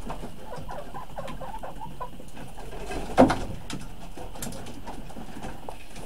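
Chickens on the roost making soft, scattered clucks and murmurs, with light scratching and ticking; one louder sound about three seconds in.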